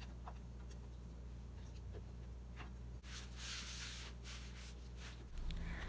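A few faint knife taps on a wooden cutting board while green pepper is sliced, then a paper towel rubbed across the board for about two seconds.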